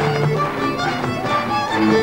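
Hungarian folk dance music: a fiddle plays the melody over held low bass notes.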